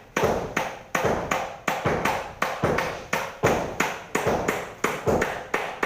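A steady series of sharp knocks, about three a second, each with a brief ringing tail.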